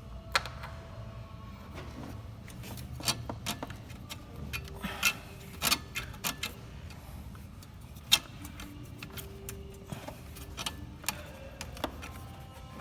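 Hand tools working on nuts in a car engine bay: irregular metal clicks and ticks, with a few louder clinks.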